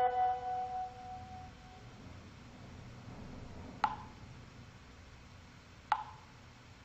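A computer notification chime: a ringing two-note ding that fades out over about a second and a half. Two short, sharp taps with a brief ring follow, about two seconds apart.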